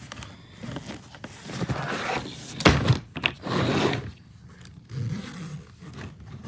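Handling noise as a suitcase is moved and examined: irregular rustling and scraping with a few clicks and one sharp knock a little under three seconds in.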